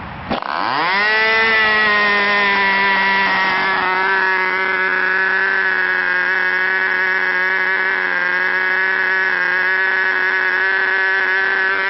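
Webra .20 (3.5 cc) model glow engine on a control-line plane, spun by a handheld electric starter. It catches just after the start and revs up over about a second, then runs steadily at high revs with an even, buzzing pitch.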